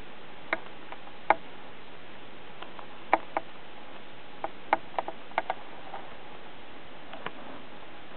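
A pet's claws clicking on a hard floor as it steps about: a dozen or so sharp, irregular ticks, some in quick pairs, over a steady hiss.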